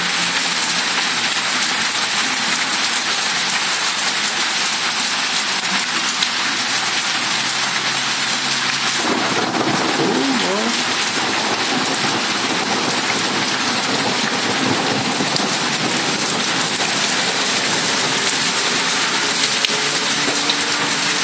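Heavy rain falling steadily and hitting hard surfaces such as a car roof and road in an even, loud patter.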